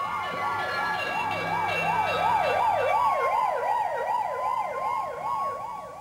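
Fire engine sirens wailing in a fast rising-and-falling yelp, about three cycles a second, fading away over the second half.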